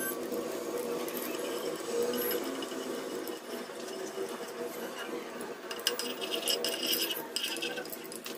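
Spatula stirring and scraping hot melting ghee in a nonstick kadhai, with a light sizzle. A run of clicks and scrapes comes in the second half.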